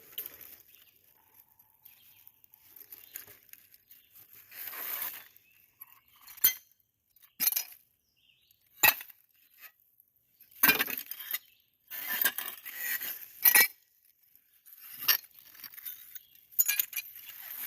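Old glass bottles and shards clinking and scraping against each other as a dump pile is dug through, with several sharp, ringing clinks among the rustling.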